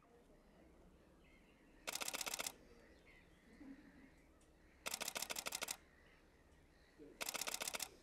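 Canon 7D DSLR shutter firing in continuous bursts: three quick runs of rapid clicks, about two seconds in, about five seconds in and near the end, each lasting under a second.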